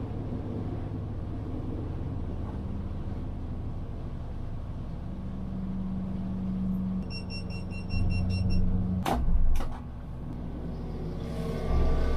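Outboard motor running under way, heard from inside the boat's cabin, easing off about seven seconds in as the boat slows at its destination. A quick run of short electronic beeps comes at about the same time, and two sharp knocks follow about two seconds later.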